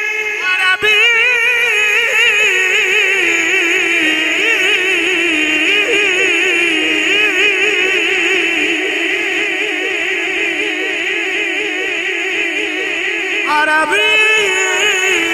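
A man's voice singing a naat in a long wordless melisma into a microphone: held notes with wide, fast vibrato that step slowly down in pitch. Near the end a new, higher phrase begins.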